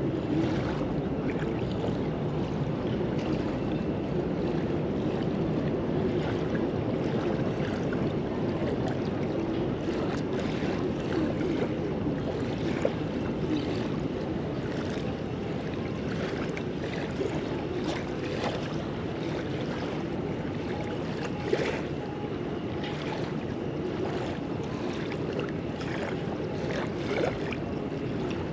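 River water lapping on a sandy shore with wind on the microphone: a steady rushing noise, with a few faint ticks.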